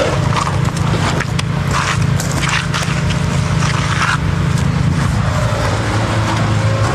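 An engine running steadily, with repeated scrapes of hand tools working wet concrete over it during a driveway pour.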